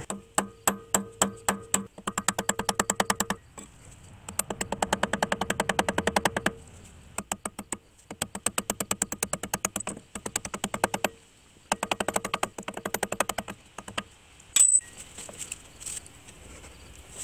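Short sledgehammer striking a punch to drive out the roll pin that holds a Subaru front axle's inner CV joint on the transmission stub shaft. It comes as several runs of quick metal-on-metal strikes with a ringing tone, separated by short pauses, and one single sharp strike near the end.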